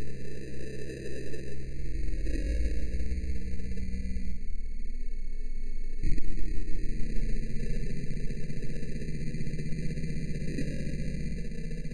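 Steady electronic droning tones over a buzzing low pulse, with a single sharp hit about six seconds in.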